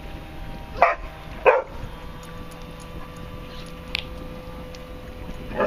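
A dog barks three times: twice in quick succession about a second in, and once more near the end. Under the barks runs the steady drone of an Evinrude 4 hp Clipper outboard motor pushing a canoe.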